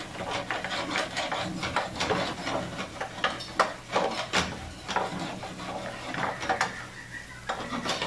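Wooden spoon stirring sliced mushrooms in a square grill pan, scraping and knocking against the pan in quick, irregular strokes, with one sharper knock about halfway through.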